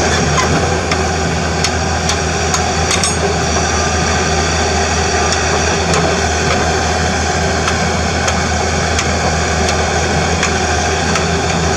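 CAT 320D2 excavator's diesel engine running steadily with a low drone, with scattered sharp clicks and knocks over it.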